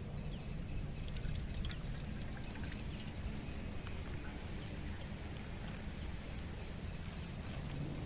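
Cooking oil being poured into a kadai, a steady pouring sound.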